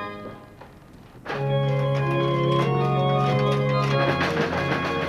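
Pipe organ playing. A held chord dies away, and about a second later the organ comes in again with full sustained chords, with the notes changing above a held bass.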